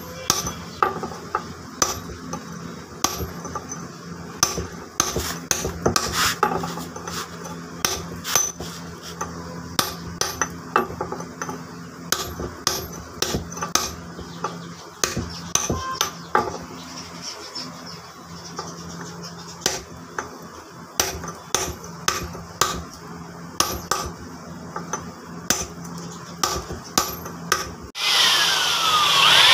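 Hammer striking a chisel on the stone face of a flour-mill millstone, cutting its grinding grooves: irregular sharp metallic taps, one or two a second. Near the end an electric blower switches on and runs with a loud steady rush.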